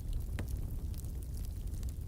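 Wood fire crackling in a fireplace: a few sharp pops and ticks, the clearest about half a second in, over a steady low rumble of the flames.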